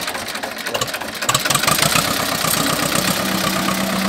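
Original diesel engine of a 1991 Escort 335 tractor running with a rapid, even beat, growing louder about a second in; a steady hum joins it about three seconds in. The engine sounds healthy, with no trouble in its 30-odd years.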